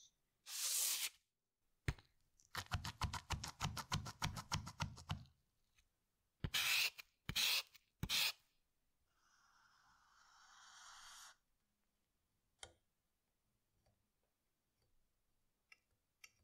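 Felt-tip markers being worked: a quick run of about ten scratchy strokes a second, a few short strokes, then a wide chisel-tip marker dragged across cardboard with a scratchy sound that swells over about two seconds, with scattered clicks of handling.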